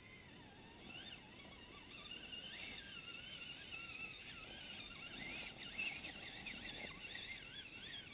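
Electric motor and geartrain of a Traxxas Summit RC crawler whining as it climbs, the pitch wavering up and down with the throttle and growing louder as it nears. A sharp click a little before six seconds in.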